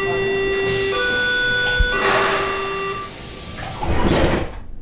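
Electronic three-note chime on a Berlin S-Bahn train, each note held about a second, the middle note higher than the other two. A steady hiss runs under the chime, swells louder near the end, then cuts off.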